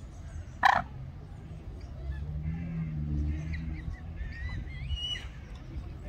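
Waterfowl calling: one sharp, loud call less than a second in and a low, drawn-out call around the middle, with small birds chirping high over a steady low rumble.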